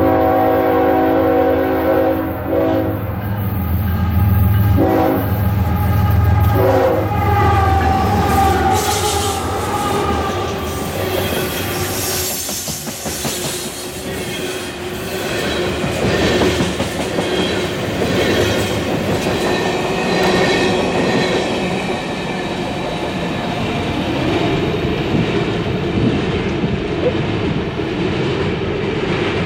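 Diesel-hauled freight train passing close by. The locomotive horn sounds a long blast and then two short ones over the heavy rumble of the engines. Then the loaded-looking string of gondolas and hoppers rolls past with rhythmic wheel clatter over the rail joints and wheels squealing at times, slowly fading as the train pulls away.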